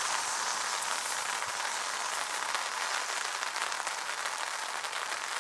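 Steady rain falling, a fine pattering crackle over an even hiss.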